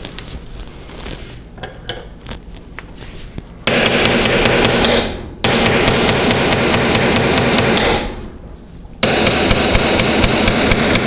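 A hammer striking a brass punch in quick, rapid taps to drift the front sight out of the dovetail of a Smith & Wesson M&P Shield slide. The taps come in three runs of fast, even strikes, the first starting a little over a third of the way in, with a short pause before the last run.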